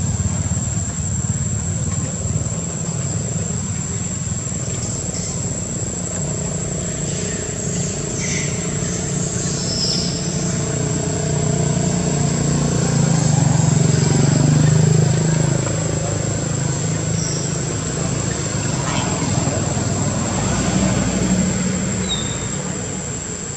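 Low rumble of a motor vehicle engine that swells about halfway through and then fades, over a steady high-pitched insect drone.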